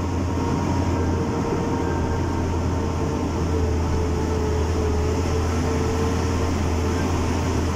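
Vehicle engine and tyre noise heard from inside the cab while driving along a dirt road: a steady low hum with no sudden knocks or changes.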